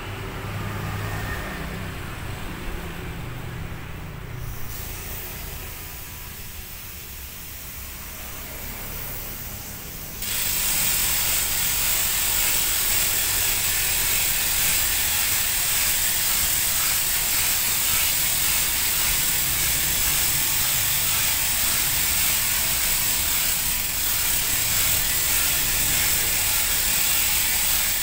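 Hand winch on the mast of a homemade pneumatic-tyre forklift being cranked to lift the forks, its ratchet pawl clicking in a fast, steady run. It starts abruptly about ten seconds in and stays loud and even.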